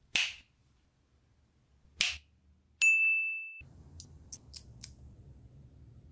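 Small magnetic balls snapping and clicking together: two sharp snaps about two seconds apart, then a short high metallic ring, then four quick light clicks.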